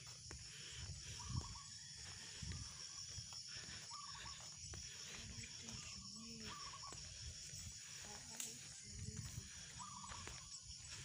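A person jogging on a paved road: faint footfalls and knocks from the hand-held phone, with short puffs of breath recurring every second or two.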